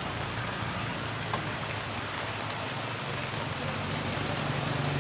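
Steady hiss of falling rain with a low background hum.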